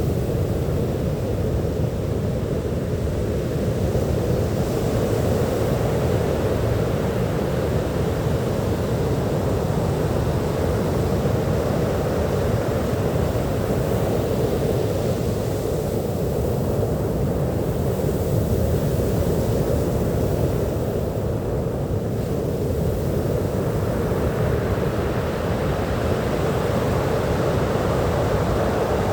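Sea surf washing on a beach as a steady, even noise, with small swells and a slightly brighter wash in the last few seconds.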